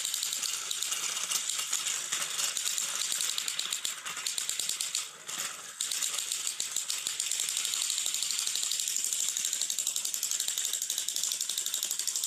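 Motors and plastic gears of battery-powered toy trains rattling steadily as the engines drive against each other on plastic track. The rattle drops briefly about five seconds in.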